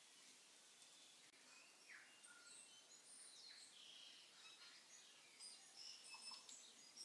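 Water sizzling and spattering on hot oil and browned onions in an Instant Pot's stainless steel inner pot as it is deglazed, starting about a second in: a hiss with many short high squeals and crackles, busiest near the end.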